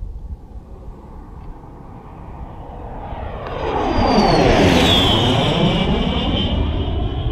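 L-39 jet's turbofan engine passing close by: the rumble builds from about three seconds in, and a high whine drops in pitch as the jet goes past, then stays loud.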